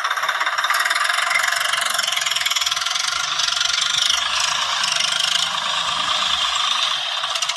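Tractor-engine running sound, steady with a fast knocking rattle, thin and high-pitched with almost no deep low end.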